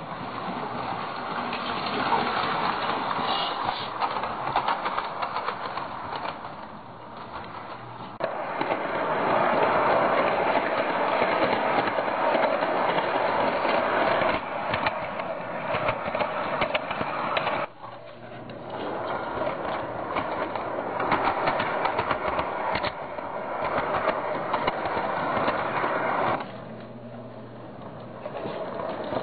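Toy model train running on its track: a steady mechanical whir and rattle of the small electric motor and wheels, full of rapid clicks. The level drops and rises abruptly a few times.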